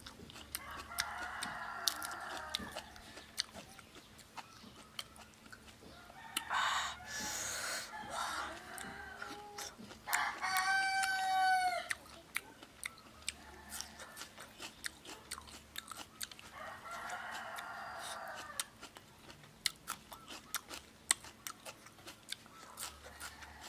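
Close-up chewing with many small sharp clicks, while chickens cluck in the background and a rooster crows once about ten seconds in.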